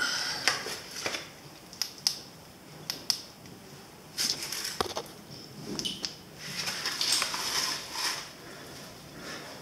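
Rustling and scraping of a caver moving about on rock and mud, with scattered sharp clicks and knocks from gear and handling, in a small rock chamber.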